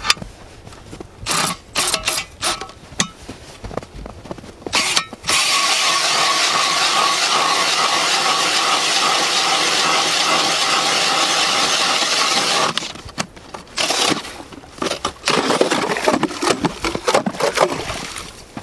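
Cordless drill turning an 8-inch StrikeMaster hand ice auger through a frozen pond by way of an adapter. A few short bursts come first, then about seven seconds of steady running under load, then choppy stop-start bursts near the end.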